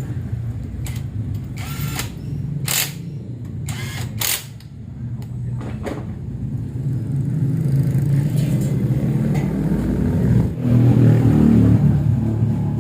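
Workshop tool work on a scooter: several short hissy bursts in the first half over a steady motor hum, and the hum grows louder from about two-thirds of the way in.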